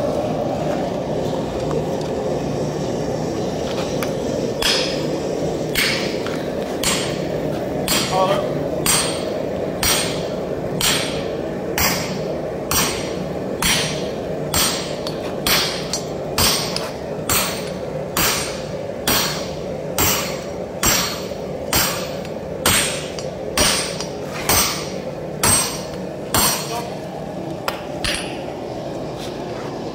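Sledgehammer blows on a handled top tool held on a glowing-hot Dane axe blank at the anvil. There are about 25 strikes, roughly one a second, starting about five seconds in and stopping a couple of seconds before the end. A gas forge burner runs steadily underneath.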